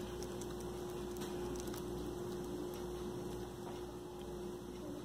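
A steady electrical hum, with faint soft wet ticks and squishes from hands rolling ground chicken cutlet mixture into a ball.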